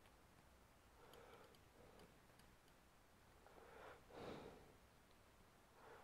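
Near silence: a few soft breaths and a short run of faint light ticks as fine tweezers work inside an opened laptop.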